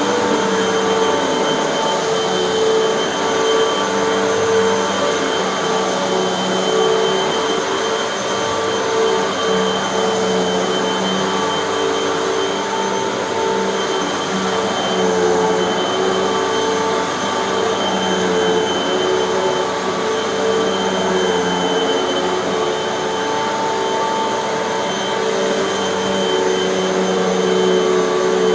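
Hoover upright vacuum cleaner running steadily while vacuuming carpet, its motor whine wavering slightly in pitch and level as it is pushed back and forth.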